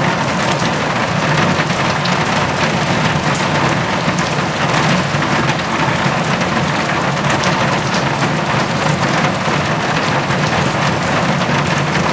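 Heavy rain drumming steadily on a metal roof, a dense patter of countless drop strikes.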